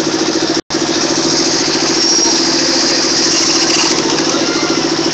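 An engine idling steadily, with a fast even throb. The sound cuts out for a split second about half a second in.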